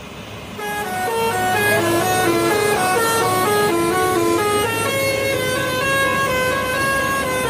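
Bus telolet horn playing a quick multi-note tune, its notes stepping up and down every fraction of a second, starting about half a second in over a low steady hum.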